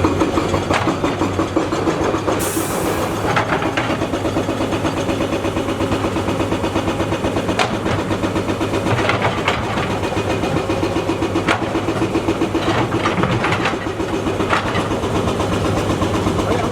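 SANY SY240C-9 excavator's diesel engine running steadily under hydraulic load, with scattered knocks and clanks and a brief hiss about two and a half seconds in.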